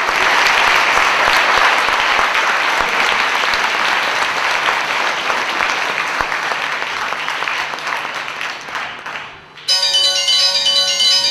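Audience applauding, slowly dying down; about nine and a half seconds in, a bright, bell-like melody of high chiming notes starts abruptly as the song opens.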